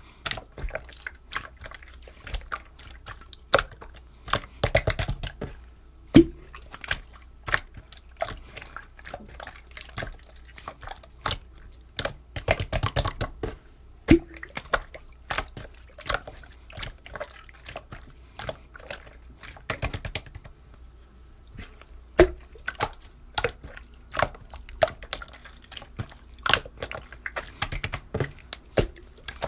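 Drinks being handled: liquid dripping and trickling, with many sharp clicks and ticks, and denser spells of pouring or splashing three times.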